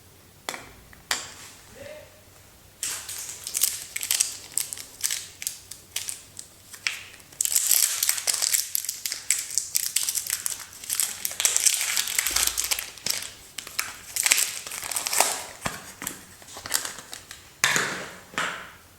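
Wrapper of a bar of soap being crinkled and torn open by hand. A few crinkles come first, then continuous crackling that is densest in the middle and thins out, with a last flurry near the end.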